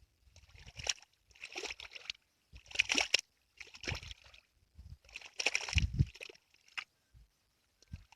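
Pond water sloshing and splashing in repeated strokes, roughly one a second, with a heavier splash about six seconds in.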